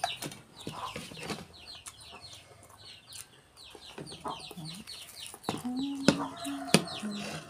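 Chickens: chicks peeping in quick, repeated high chirps, several a second, with a lower call from an older bird partway through. A few sharp clicks of plates being handled come near the end.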